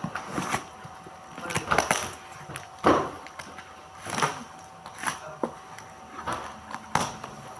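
Irregular knocks, scrapes and rustles of packaging and products being handled and set down during an unboxing, about one clatter a second.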